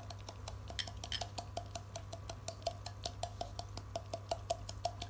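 Rapid, even knocking, about five knocks a second, from fish feed being crushed in a hard container. This tapping calls the goldfish to gather for feeding.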